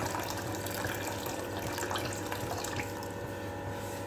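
Water being poured into chicken stock, the splashing pour thinning out about three seconds in.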